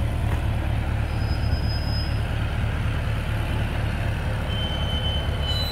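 1956 Ferguson TO35 tractor engine running with a low, even pulsing beat as the tractor moves slowly.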